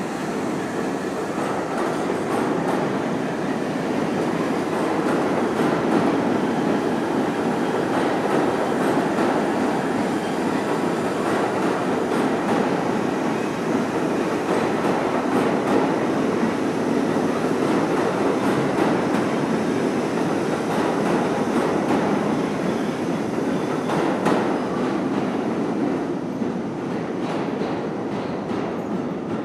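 R32 subway train running out of the station into the tunnel: a steady loud rumble of steel wheels on rail with clickety-clack over the rail joints, easing slightly near the end as it pulls away.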